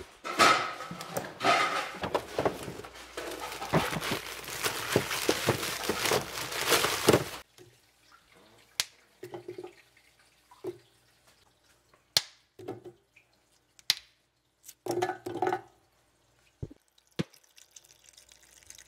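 Water running loudly for several seconds and cutting off sharply. A few scattered knocks follow as frozen chicken bones and vegetable scraps are handled in a pot. Near the end a kitchen tap starts running water into the pot.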